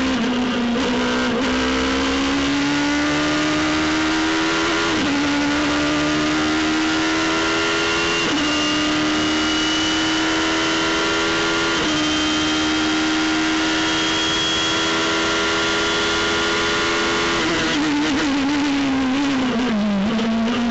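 Radical SR3 race car's motorcycle-derived four-cylinder engine heard onboard under full throttle, the revs climbing through three quick upshifts, each a brief dip in pitch, about 5, 8 and 12 seconds in. Near the end the revs fall away through downshifts under braking.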